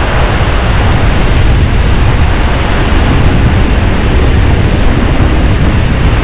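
Strong wind buffeting the microphone as a loud, steady, rumbling rush, with ocean surf washing behind it.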